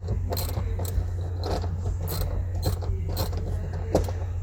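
Hand tool working a seat-mounting bolt into the car's floor: sharp metallic clicks about every half second with scraping between them, over a steady low hum.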